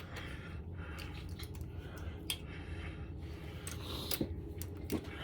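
Scattered light metallic clicks and taps of hand tools and a socket extension being handled, over a steady low hum.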